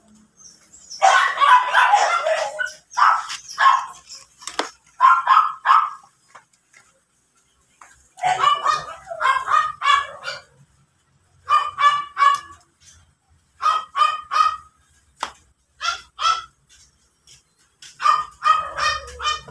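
A dog barking in short runs of quick, high yips, again and again with brief pauses between the runs.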